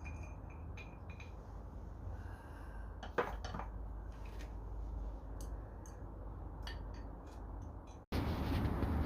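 Faint metallic clinks and clicks of hand tools working on a motorcycle engine, the sharpest about three seconds in, over a low steady background hum.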